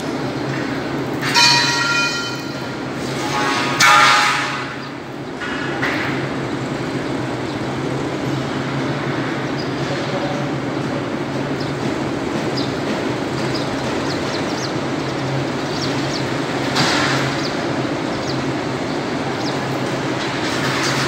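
A steady low engine hum over a constant noisy background. It is broken twice near the start, about a second and again about four seconds in, by short pitched sounds that stand out above the hum.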